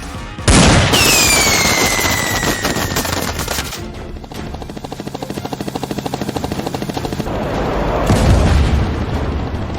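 Film-style gunfire sound effects over background music: a sudden blast with a falling whistle about half a second in, rapid automatic gunfire from about four to eight seconds, and another blast a little after eight seconds.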